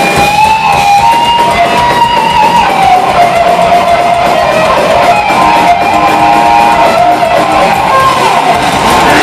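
Electric guitar played live at loud volume, holding and bending single notes in a slow, sliding melodic line.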